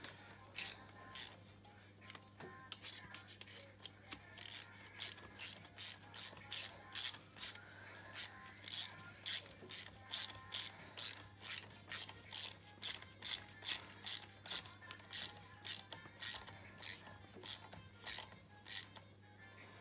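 Ratchet wrench clicking in quick, even strokes, about three a second, as bolts are run in on the cylinder head of a 250 cc ATV engine being reassembled. A faint steady hum underneath.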